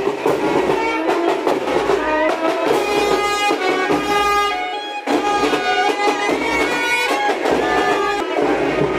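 A live band of wind and brass instruments, clarinet among them, playing a melody in held notes.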